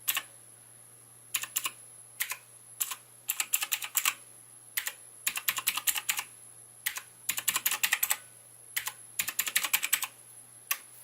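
Azio MGK1 mechanical keyboard with clicky Kailh Blue switches being typed on, sharp key clicks coming in irregular bursts of rapid keystrokes separated by short pauses.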